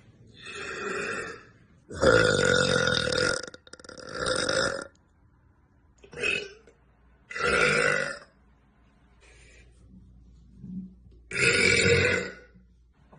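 A woman burping repeatedly: about six deep, drawn-out burps of varying length, the longest and loudest starting about two seconds in.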